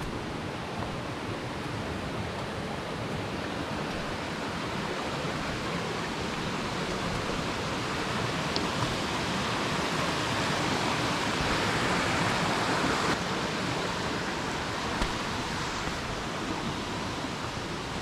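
Stream water rushing over rocks, a steady hiss that grows louder toward the middle and drops off suddenly about two-thirds of the way through.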